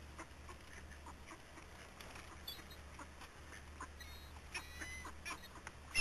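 Mallard ducks quacking faintly, a few short calls that come more often in the second half, over a steady low hum.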